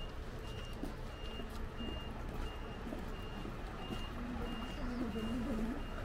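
Electronic warning beeper sounding a steady series of short high beeps, about three every two seconds, of the kind a vehicle's reversing alarm makes, over a low steady rumble.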